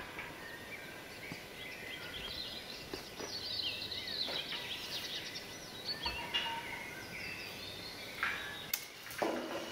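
Songbirds chirping and singing in the woods, with occasional light clinks of galvanized steel hurdle panels being handled. Near the end a louder metallic clank and rattle as the panels are joined.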